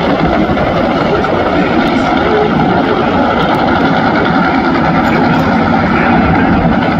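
Top Fuel Funny Car's supercharged nitromethane V8 running hard during a burnout, a loud, steady rumble.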